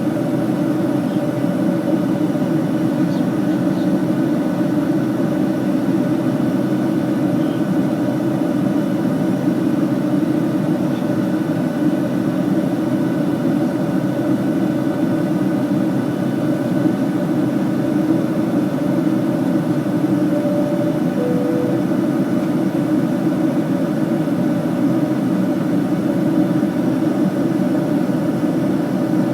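Steady cabin noise inside a jet airliner in flight: the low, even rush of the engines and airflow with a constant hum. A faint short two-note falling tone sounds about two-thirds of the way through.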